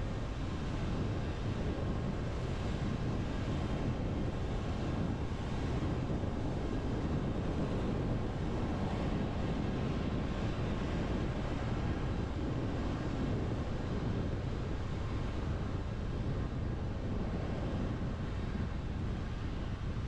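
A car driving on a rain-soaked road: steady tyre and road noise, a low rumble with a hiss of water over it.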